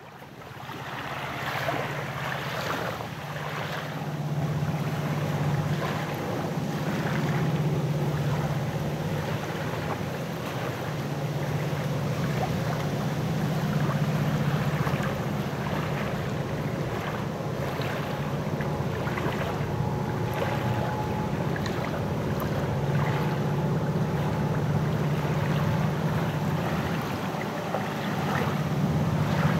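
CN EMD SD75I and GE C40-8 diesel locomotives working a freight train, a steady low engine rumble with wind buffeting the microphone, fading in over the first couple of seconds.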